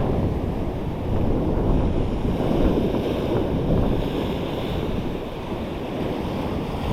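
Ocean surf washing against a rock shore, with wind buffeting the microphone. The wash swells slightly about a second in and again midway.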